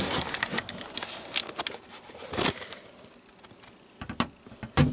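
Handling noise from an astronomy camera and telescope being moved about on a metal bench: irregular clicks and taps, with a few louder knocks.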